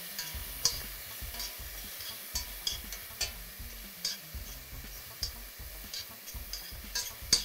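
Metal spoon stirring crushed tomatoes, onion and garlic frying in oil in a stainless steel pan: a soft sizzle with irregular clinks and scrapes of the spoon against the pan, about one or two a second.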